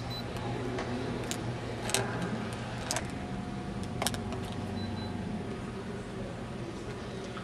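Room tone with a steady low hum, broken by about four sharp clicks or taps between one and four seconds in.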